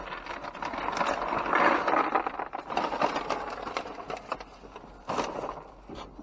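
Plastic bags and cardboard rustling and crinkling as a gloved hand rummages through bagged trash, with a sharper crackle about five seconds in.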